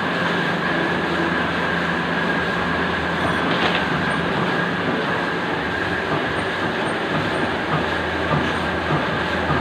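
Cutting machine running steadily: an even mechanical noise with a constant high whine over a low hum, and a faint click about three and a half seconds in.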